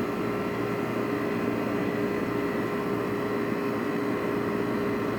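Window air conditioner running, its compressor giving a steady hum under the even rush of the condenser fan.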